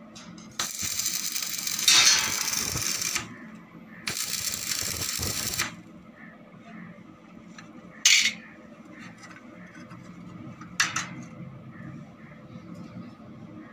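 Electric arc welding on a steel stair frame: the arc crackles for about two and a half seconds, stops, runs again for about a second and a half, then strikes twice more briefly for short tack welds.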